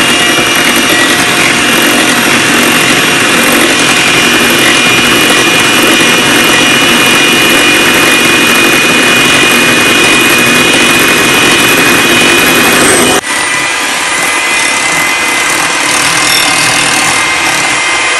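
Hamilton Beach electric hand mixer running at speed 3, its beaters whipping heavy cream and cocoa powder in a glass bowl: a steady, loud whirring motor whine. About two-thirds of the way through it turns slightly quieter and lower in pitch, and runs on.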